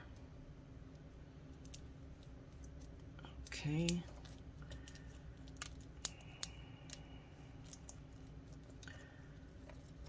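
Faint crinkling and small scattered clicks of the laptop's thin copper shielding being handled and pressed back down into place, over a low steady hum.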